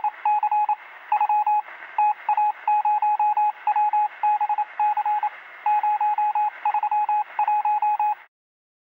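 Morse code over radio: a single tone keyed on and off in groups of short and long beeps, over a steady hiss of static. It cuts off abruptly near the end.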